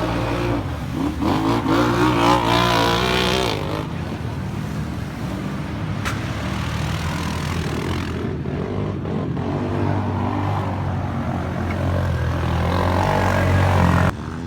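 ATV engines revving up and down in the first few seconds, then running on in a steadier drone; the sound drops away abruptly near the end.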